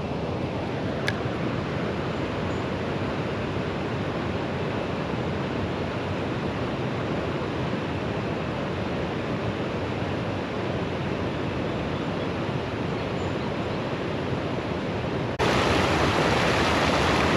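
Steady rush of flowing stream water, from a small waterfall. About fifteen seconds in it turns suddenly louder and brighter.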